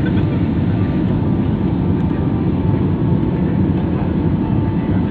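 Steady loud rumble of a jet airliner cabin in flight, a constant low drone with a faint steady whine above it.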